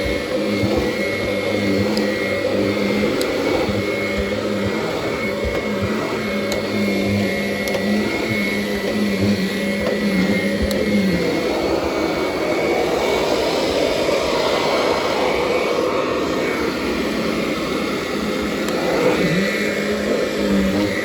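Kirby upright vacuum cleaner running steadily while it is pushed over carpeted stair treads, with a constant hum and a higher whine. Its motor note shifts about halfway through and again near the end.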